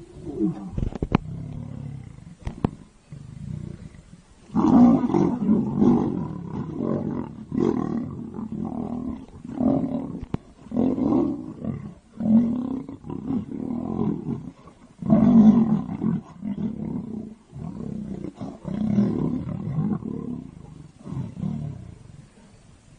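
Male lions fighting, with loud, repeated growls and roars in bursts from about four and a half seconds in until near the end. Two sharp clicks come before the fighting sounds start.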